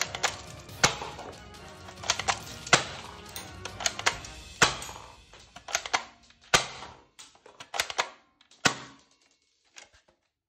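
Sharp plastic clicks and clacks of a toy Steyr AUG rifle being handled and its parts worked, over background music that fades out about eight seconds in.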